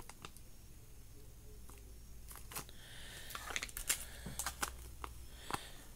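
Faint crinkling and clicking of small plastic packaging bags being handled and lifted from a box tray, a scatter of short crackles in the second half after a quiet start.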